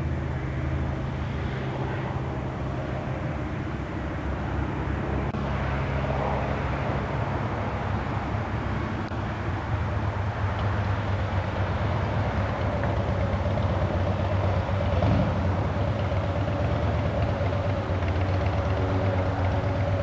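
Light single-engine propeller planes, a Piper PA-28 Archer and a Cessna 172S, each with a four-cylinder Lycoming engine, climbing out overhead after take-off: a steady engine-and-propeller drone whose pitch drops a little about five seconds in as they pass.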